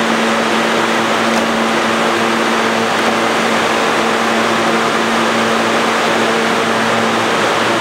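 R160B subway car standing at the platform, its ventilation and auxiliary equipment running with a steady hum and a constant low tone.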